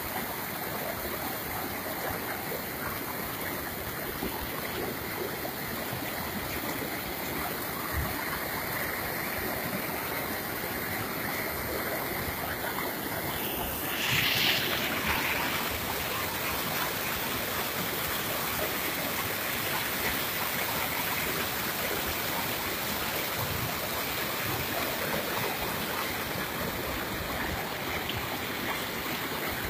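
Floodwater rushing in a steady, turbulent flow across and over a railway track. About halfway through comes a brief rubbing noise, as from a finger brushing the phone's microphone.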